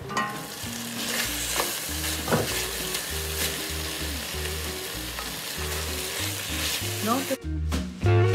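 Chicken pieces with onion, garlic and ginger sizzling in an enamelled Dutch oven while a wooden spatula stirs them. The lid comes off with a brief clink at the start.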